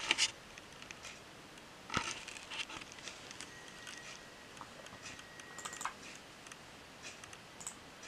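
Faint, scattered clicks and taps of a laptop being used, loudest right at the start and in a small cluster about two seconds in, with a faint thin high whine for a couple of seconds in the middle.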